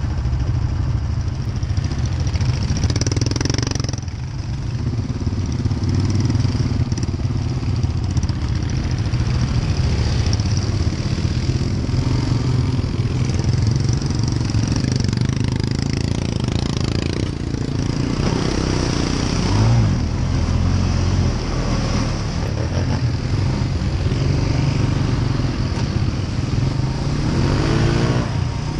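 ATV engine running continuously while the quad works through mud and standing water, with the engine note rising and falling as the throttle changes; near the end it revs up in a few rising sweeps.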